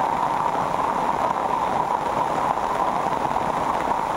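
Heavy rain falling steadily, an even unbroken downpour.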